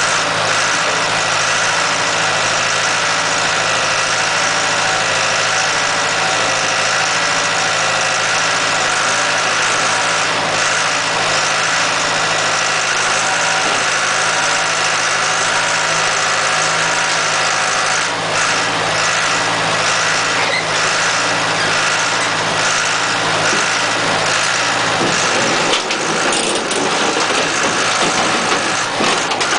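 A mobile horizontal scrap-metal baler's engine and hydraulic power unit running steadily while it bales scrap steel, with a few short metallic knocks. Near the end the low engine hum shifts.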